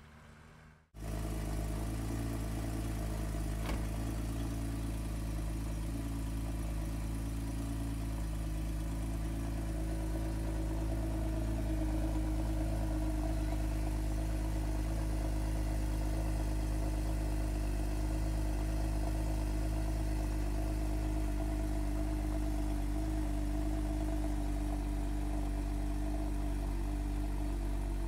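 Porsche Cayman S flat-six engine idling steadily, heard close to the rear of the car; the sound starts abruptly about a second in.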